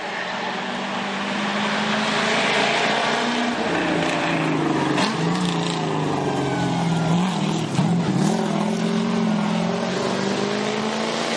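Hillclimb race car's engine under hard acceleration through the turns, growing louder over the first couple of seconds, then revs rising and falling as the driver works through the bends. A single sharp crack about eight seconds in.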